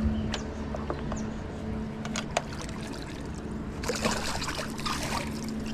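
Water splashing at the side of a boat for about a second and a half, about four seconds in, as a hooked striped bass is brought alongside, over a steady low hum and a few light knocks.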